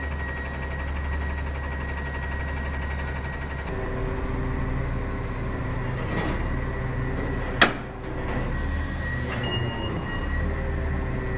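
Autocar Xpeditor garbage truck's diesel engine running steadily as the truck moves off slowly, with a thin steady whine over it. A sharp metallic clank comes about seven and a half seconds in, with lighter knocks around it.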